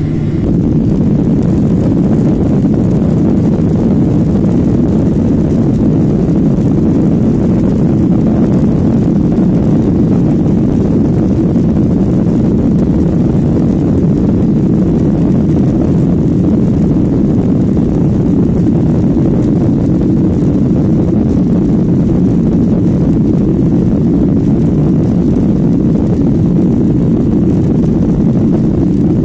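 Jet airliner heard from inside the cabin over the wing as it rolls along the runway: a loud, steady low roar and rumble from the engines and wheels. It grows a little louder about half a second in, then holds steady.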